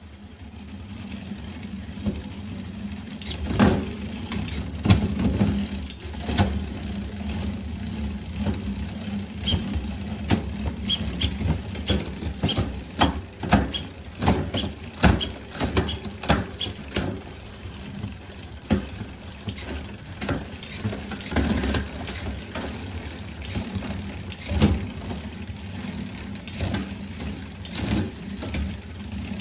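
Bicycle drivetrain running on a stand, a 12-speed chain turning over the cassette with a steady hum that builds up over the first couple of seconds. Repeated sharp clicks and clunks as the SRAM GX Eagle AXS electronic rear derailleur shifts the chain up and down the cassette.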